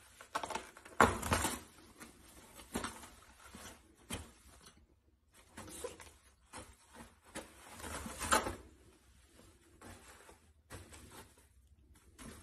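A cat's claws scratching and pulling at a toilet paper roll: soft, irregular rustles and scrapes of paper, a little louder about a second in and again about eight seconds in.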